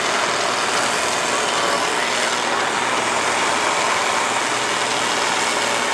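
Farm tractor's engine running hard under load, steady and loud, as it pulls a weight-transfer sled in a tractor pull.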